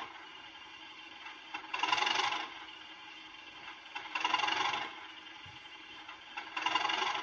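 Bachmann OO-gauge Class 37 model locomotive's factory-fitted DCC sound decoder playing its diesel engine sound through the small onboard speaker. The sound is fairly quiet and swells in a pulse about every two seconds.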